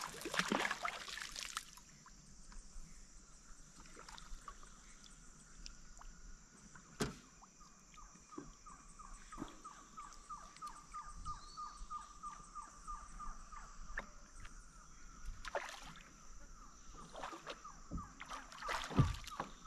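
Kayak paddling: water sloshing against a paddle and hull, with scattered knocks and a loud knock near the end. Under it runs a steady high-pitched chirring and a rapid ticking call from the surrounding wildlife.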